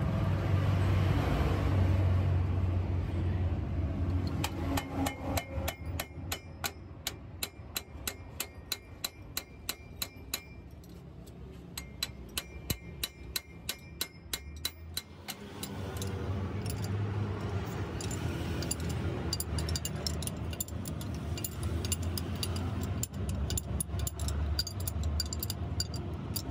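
Metal-on-metal clicking from a spanner working the drive shaft flange bolts: a long run of sharp, evenly spaced clicks, about three a second, each with a short ringing tone. Near the middle the clicking gives way to a steady low rumble with scattered ticks.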